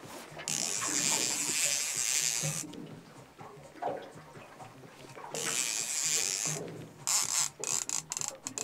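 Fishing reel's drag buzzing in two long runs as a hooked fish pulls line against the bent rod, then several short stuttering bursts near the end.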